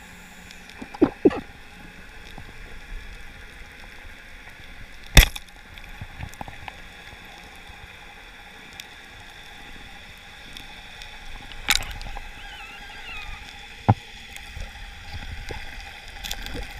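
Steady underwater hiss broken by a few sharp clicks and knocks. The loudest, a single hard clack about five seconds in, fits a band-powered speargun firing its shaft; smaller clicks come near the start and again about 12 and 14 seconds in.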